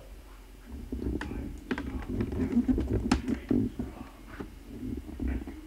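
Handling noise close to a camcorder's microphone: a run of irregular clicks and knocks over uneven low rubbing and bumping, starting about a second in, as the camera is moved about.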